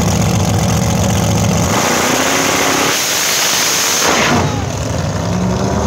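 A drag car's engine running at the starting line, then launching at full throttle about two seconds in with a loud roar lasting a couple of seconds. The roar fades after about four seconds as the car runs away down the strip.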